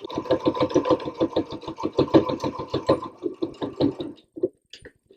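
Sewing machine running at a steady speed, topstitching through fabric with a fast, even stitch beat of about six or seven stitches a second. It stops about four seconds in, followed by a few light clicks.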